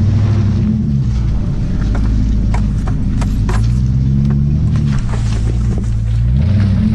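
Jeep Grand Cherokee's 4.7 L V8 running through Flowmaster 40 Series and Super 10 mufflers, its exhaust note rising and falling as the throttle is worked in mud, with a scatter of sharp clicks and knocks around the middle.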